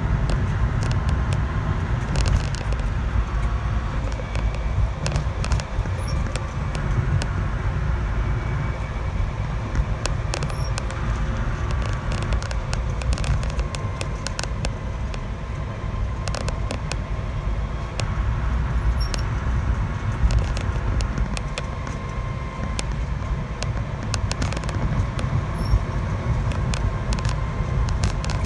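A motor vehicle running with a steady low rumble, with irregular sharp clicks and rattles over it: the abnormal noise under scrutiny.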